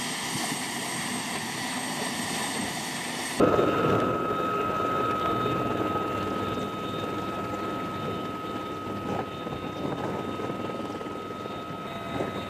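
UH-1Y Venom helicopter's twin turboshaft engines and rotor running, a steady mechanical noise with high turbine whine. About three seconds in the sound cuts abruptly to the inside of the cabin, where a single steady high whine sits over the heavier running noise.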